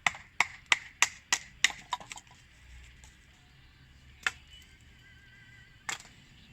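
A quick run of about seven sharp knocks, roughly three a second, then two single knocks a couple of seconds apart.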